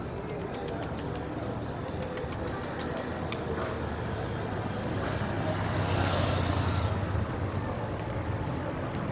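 Street traffic: engines running steadily, with a vehicle passing and swelling loudest about six seconds in. Scattered light clicks sound in the first three seconds.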